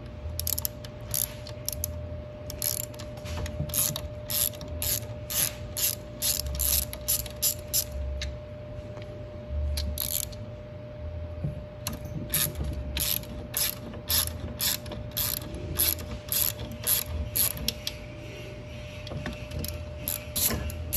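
Ratchet wrench with a 12 mm socket clicking in runs of about two to three clicks a second as it loosens the treadmill motor's mounting bolts, pausing briefly about eight seconds in and again around eleven seconds in.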